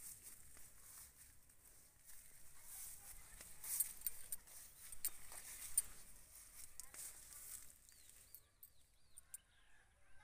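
Faint rustling and handling noise with a few clicks, then near the end a bird calling a quick run of short falling chirps.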